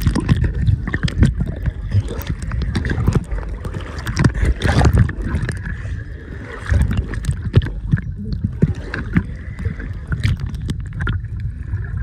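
Muffled water sounds heard from below the surface: a low, uneven rumble of water moving and sloshing, with many irregular clicks and crackles scattered through it.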